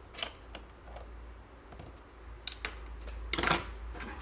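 Light, scattered clicks and taps of hands and a tool working on a laptop's plastic base, with a quick cluster of clicks about three and a half seconds in.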